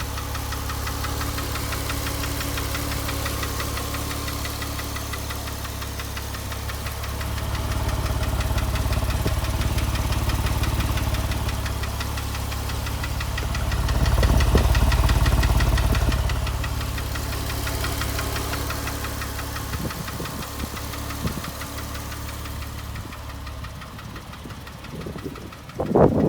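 Porsche 997 Carrera S 3.8-litre flat-six engine running with knocking noises. It is revved up gently twice, the second time higher, and settles back between. A sudden loud irregular noise cuts in at the very end.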